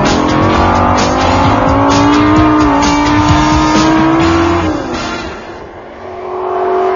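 Lamborghini Gallardo LP550's V10 engine revving hard under acceleration, its note climbing steadily in pitch for about four and a half seconds. It then drops away suddenly and comes back quieter and steadier near the end.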